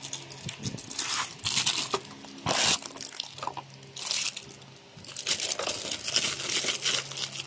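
Cardboard box being opened and a new air filter in clear plastic wrap handled: irregular crinkling and rustling of plastic film and cardboard, in several bursts.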